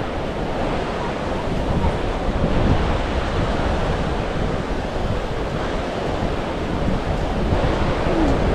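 Ocean surf washing onto a beach, with wind buffeting the microphone as a steady low rumble.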